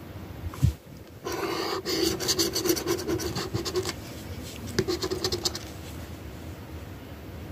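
Scratch-off lottery ticket being scratched, the coating rubbed away in quick raspy strokes: a long spell from about a second in to four seconds, and a shorter spell around five seconds. A single knock comes just before the first spell.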